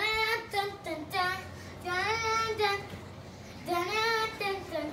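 A child singing, in short phrases with a couple of long held notes.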